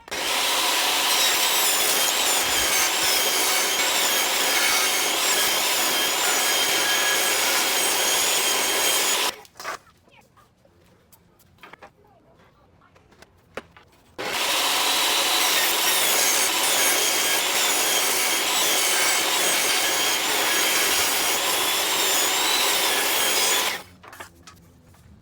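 Electric power sander running against wood in two runs of about nine seconds each, stopping for a few seconds between them.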